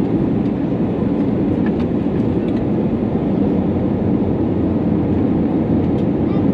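Steady in-cabin noise of a Swiss Airbus A320neo descending to land, heard from a window seat beside the wing: an even low rush of airflow and its Pratt & Whitney PW1100G geared turbofan engines. A few faint clicks come through about two seconds in and again near the end.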